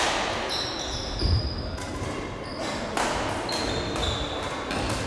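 Badminton rally: a series of sharp racket strikes on the shuttlecock, mixed with short high squeaks of shoes on the court floor and a few low thuds of players' feet landing.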